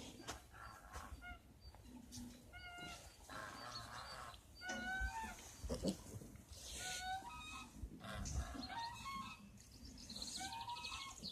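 Piglets squealing in many short, high calls, one after another, with snuffling and rustling around them.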